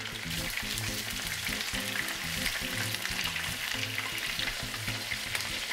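Cornstarch-battered pork pieces deep-frying in a pot of hot oil: a steady, crackling sizzle as the pieces are stirred. Light background music plays underneath.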